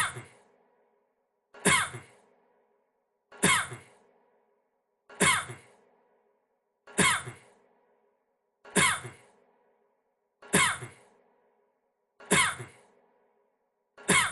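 A man's single short cough, looped: the same cough repeats identically about every 1.75 seconds, nine times, with silence between.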